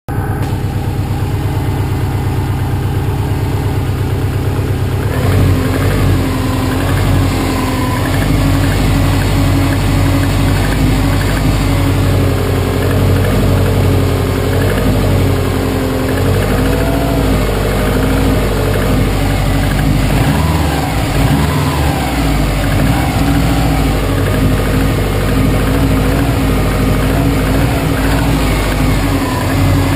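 Saab 9-2X Aero's turbocharged flat-four engine running with a knock that the owner puts down to piston slap. The sound grows louder and fuller about five seconds in, then runs steadily.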